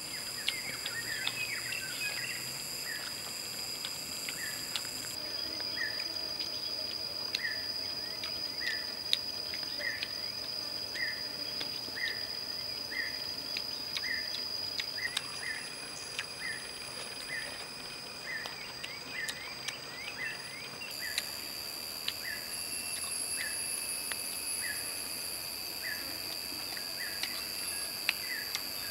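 Insects drone steadily with a high-pitched whine, while a bird repeats a short call a little more than once a second. Faint sharp clicks come here and there.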